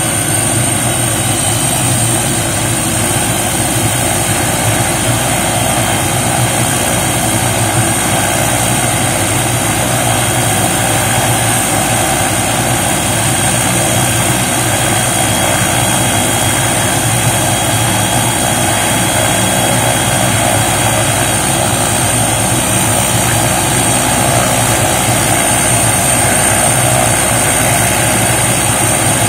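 MD 500E helicopter's Allison 250 turboshaft engine running on the ground, its main rotor turning slowly, with a steady high turbine whine over the engine noise. It grows gradually louder.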